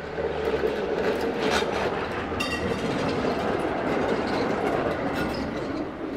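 DÜWAG GT6 articulated tram passing close by on a curve, its wheels rumbling and clattering over the rails, with a sharp metallic click about two and a half seconds in. The noise eases off near the end as the tram goes by.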